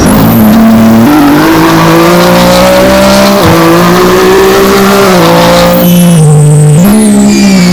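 A loud engine held at high revs, its pitch stepping up and down several times and dropping away sharply near the end.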